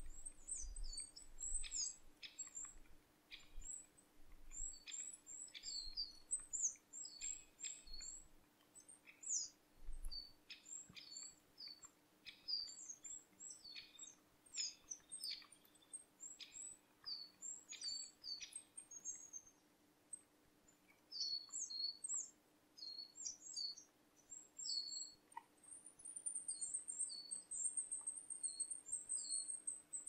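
Small songbirds calling in a forest: many short, high, thin chirps scattered throughout, becoming a rapid, continuous twitter of high notes near the end.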